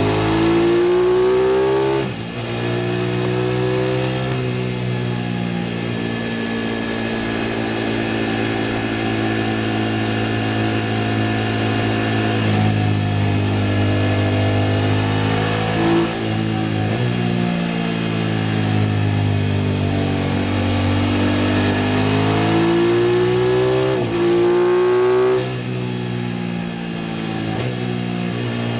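Aprilia RS660's parallel-twin engine heard from onboard while riding. It accelerates with quick upshifts near the start, holds a steady cruise, then eases off with a short rev blip about halfway through, and pulls up in pitch again before another upshift near the end.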